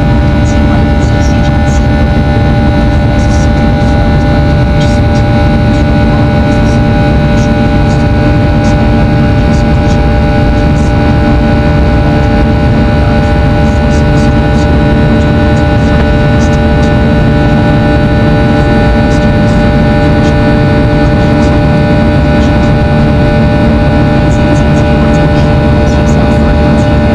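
Boeing 737-800's CFM56-7B turbofan engines running steadily, heard from inside the cabin over the wing: a loud, even rumble of airflow with several fixed whining engine tones layered on top.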